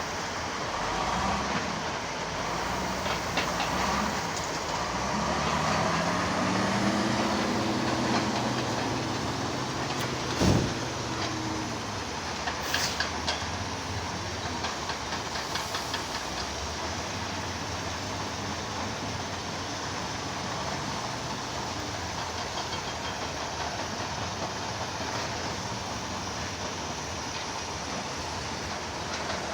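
Heavy diesel earthmoving machinery running steadily. The engine revs up and eases off over a few seconds about five seconds in, and a single sharp metallic knock comes about ten seconds in.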